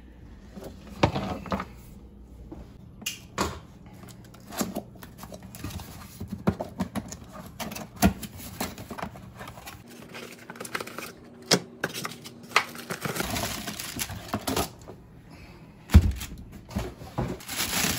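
Handling noises: a string of irregular clicks, taps and knocks as a cardboard box is opened, then plastic crinkling as the new garbage disposal is drawn out of its bag, with one loud thump about two seconds before the end.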